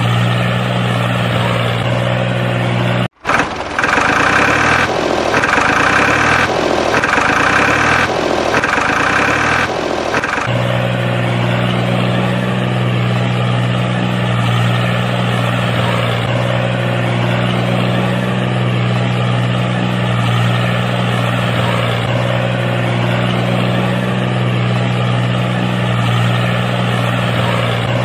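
A tractor-type engine runs steadily. About three seconds in it drops out briefly. For the next seven seconds or so a louder sound swells and fades roughly every second and a half, then the steady running returns.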